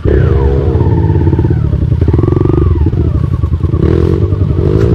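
Dirt bike engine with an open exhaust pipe revved up from idle and held at high revs, its pitch falling and rising as the throttle is worked.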